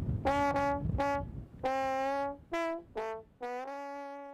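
A brass horn playing a short melody of separate notes, ending on a long held note.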